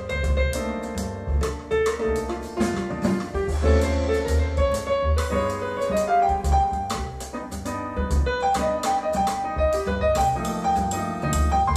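Jazz piano trio (piano, double bass and drums) playing through Triangle Borea BR03 BT powered speakers, picked up by a stereo pair of room microphones: moving piano lines over deep bass notes, with frequent cymbal and drum hits.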